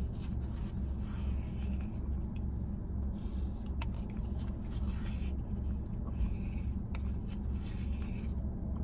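Plastic spoon scraping and digging Italian ice from its cup, in short scattered scrapes and small clicks, over a steady low hum inside the car.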